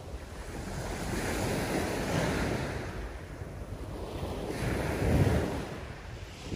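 Small waves breaking and washing over a shingle beach, surging and falling back every few seconds, loudest about five seconds in, with wind rumbling on the microphone.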